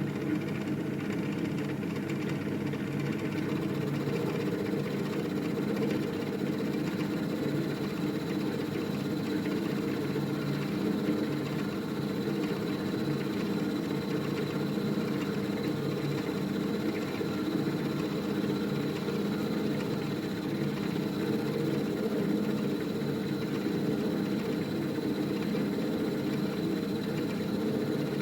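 Milling machine running steadily while an end mill takes a cut through bar stock, a continuous even hum with a thin high whine and no chatter.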